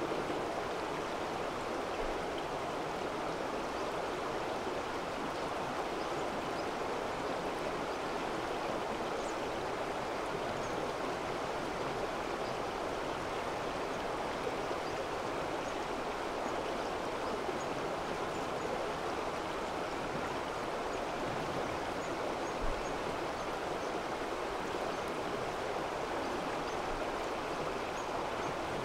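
Mountain stream rushing, a steady, even water noise with no letup.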